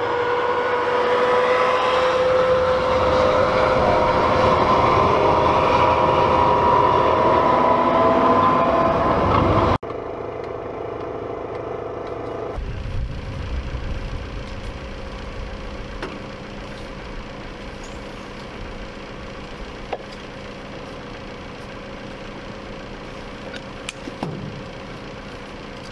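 M270 MLRS tracked rocket launcher driving past on gravel: its diesel engine running with a whine from the tracks, two tones edging slightly up in pitch. About ten seconds in it cuts off suddenly to a quieter, steady engine hum with a few faint clicks.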